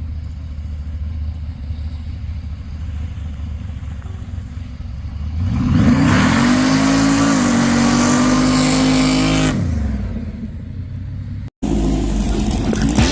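Hot rod engine idling with a low, lumpy rumble, then revved up about five seconds in, held high for a few seconds and let fall back. A sudden cut near the end brings in a different sound.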